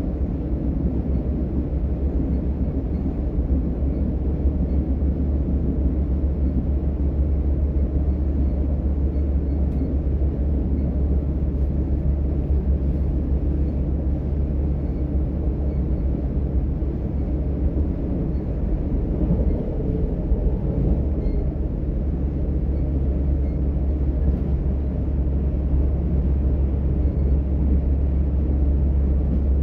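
DB Class 425 electric multiple unit 425 143 heard from inside the passenger compartment while running: a steady deep rumble of wheels and running gear on the track, swelling slightly near the end.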